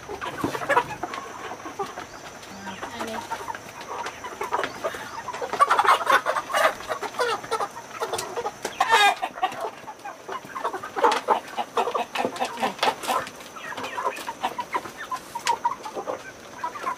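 A flock of chickens clucking and calling, many short overlapping clucks, with one longer wavering call about nine seconds in.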